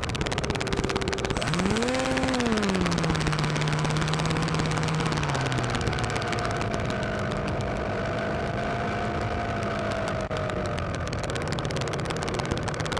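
Electric motor and propeller of a Skywalker FPV model plane whining as the throttle changes: the pitch rises and falls, holds steady, then drops away about six seconds in, leaving a steady rush of wind.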